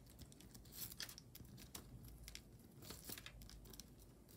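Faint, scattered light clicks and rustles of a gold-tone metal chain necklace being handled.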